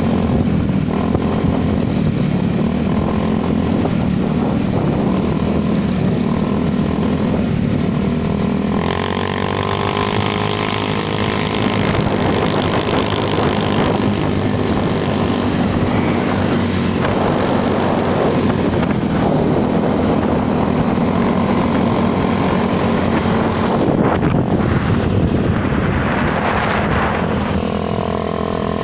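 Small motorcycle engines running at road speed during a group ride, heard from a moving bike with rushing air noise. Around nine to twelve seconds in, another bike's engine pitch bends up and down close by.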